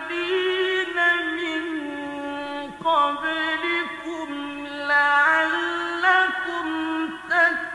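A solo voice singing a slow, unaccompanied chant, holding long notes and sliding between pitches in an ornamented line.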